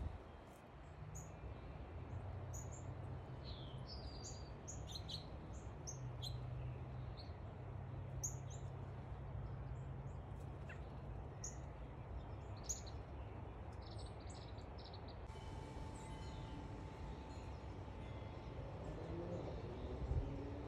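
Small backyard songbirds chirping, many short high chirps in quick succession, busiest for the first three-quarters and then thinning out, over a steady low background hum.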